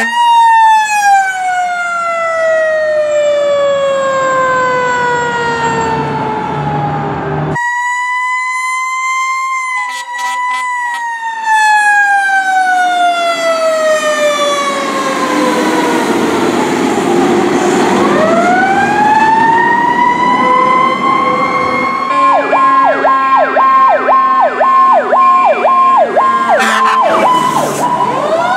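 Fire truck sirens wailing. A siren's pitch falls away slowly, then after a cut another siren winds down and climbs back up. Over the last several seconds a fast-repeating warbling siren sounds alongside a steady high tone.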